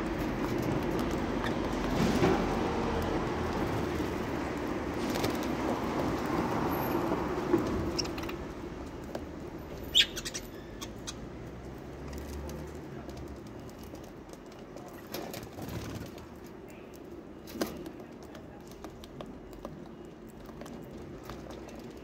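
Budgerigars at a seed tray: wing flutters and rustling for the first eight seconds or so, then quieter, with scattered sharp clicks as they feed, the loudest about ten seconds in.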